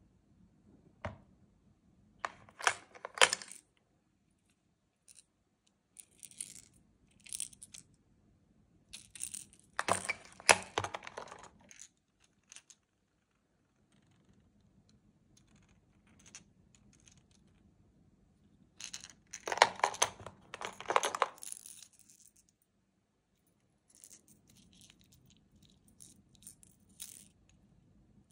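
Hard plastic fishing lures and their treble hooks clicking and clinking against a plastic tackle box and its dividers as they are lifted out and handled. The sound comes in three main bursts of quick clatter, with a few soft ticks between.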